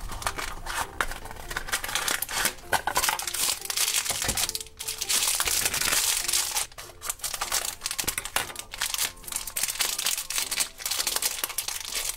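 Hands crinkling and pulling open a thin orange plastic toy wrapper: dense, irregular crackling and rustling with many small clicks.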